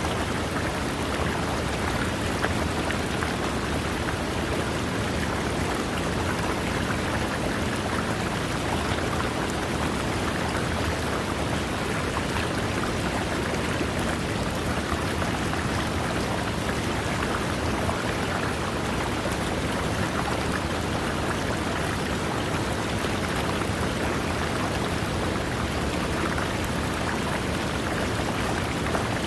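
River water running over rocks: a steady, even rushing and splashing that does not change.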